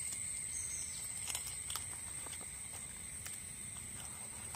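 A steady high drone of insects, with a few faint sharp clicks from a knife cutting along the backbone of a raw chicken.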